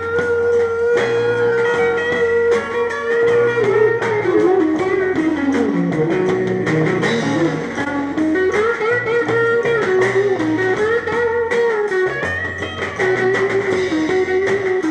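Rock band playing an instrumental passage led by guitar, over a bass line and beat. A long-held lead note slides down in pitch about halfway through and climbs back up.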